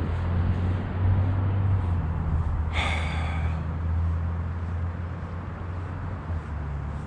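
Small Suzuki tiller outboard motor running steadily, a low even hum, with a brief high-pitched sound about three seconds in.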